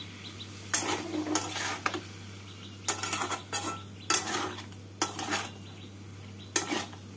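Flat metal spatula scraping and clattering against a steel kadai as cubed potatoes and spices are stirred and fried together, in short bursts about once a second, over a low sizzle.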